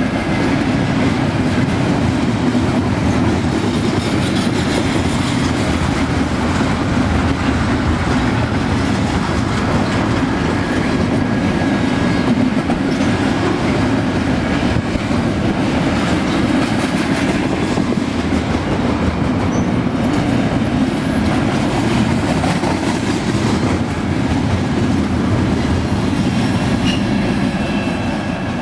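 BNSF double-stack container train rolling past at close range: steady noise of steel wheels running on the rails, easing off near the end as the last car goes by.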